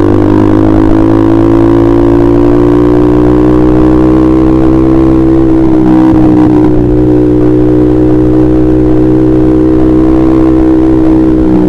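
Honda CBR150R's single-cylinder engine running loud through a KJ Pro Performance aftermarket exhaust at a fairly steady speed. Its pitch rises slowly for about five seconds, then eases off a little.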